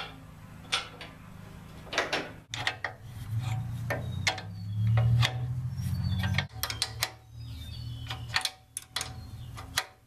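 Wrench clinking and tapping on the plow's steel bolts and nuts as a plow bottom is bolted onto the frame, a string of sharp metallic clicks and knocks. A steady low hum runs underneath, loudest around the middle.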